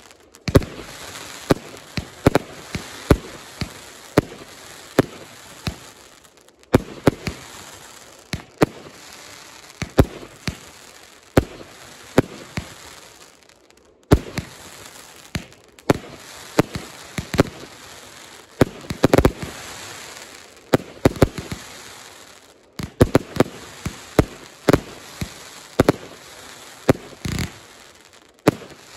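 Jorge Fireworks Sajgon 49-shot consumer firework barrage firing: a steady run of sharp shot bangs, about one or two a second, over a constant hiss, breaking off briefly three times.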